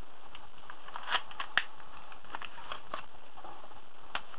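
Scattered light clicks and taps of an airsoft M9 pistol being handled, over the steady hiss of an old, low-quality camera microphone.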